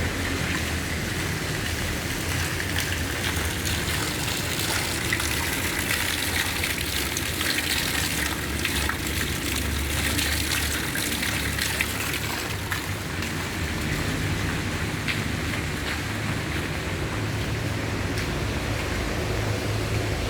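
Heavy rain falling steadily, an even hiss with scattered drop ticks and a low rumble underneath.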